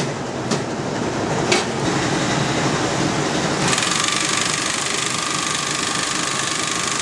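Portable electric bag-closing sewing machine stitching the top of a filled feed sack shut, starting about halfway through and running steadily with a thin whine. Before it, steady mill machinery noise with a couple of sharp clicks.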